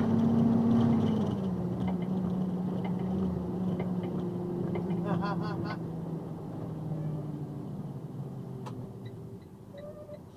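Box truck's air horn blowing one long, low blast whose pitch drops about a second in and then slowly sags as it fades. Children's voices shout briefly about halfway through.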